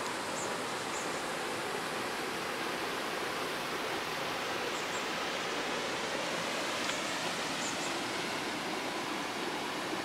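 Waterfall rushing steadily, an even, unbroken wash of falling water.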